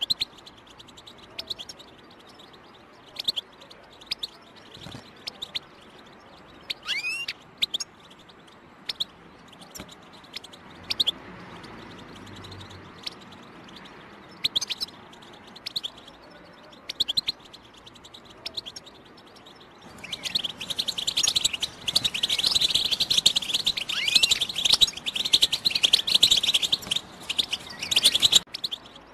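European goldfinch giving scattered short chirping calls, then breaking into dense, continuous twittering song about twenty seconds in, which cuts off suddenly near the end.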